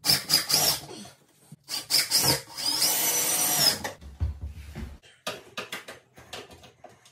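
Cordless drill/driver driving sheet metal screws into a metal light-fixture housing: a few short bursts, then a run of about a second near the middle. Quieter clicks and handling sounds follow.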